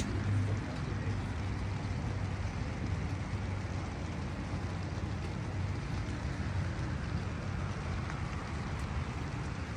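Steady rain falling, with a low hum underneath.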